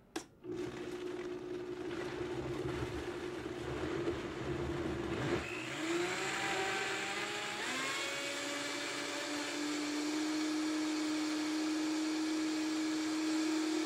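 Vitamix 5200 blender switched on with a click and running at low speed on a jar of liquid soup ingredients. About five seconds in, its pitch rises as the variable-speed dial is turned up. From about eight seconds in it runs at a steady high-speed whine, the long high run that heats the soup by blade friction.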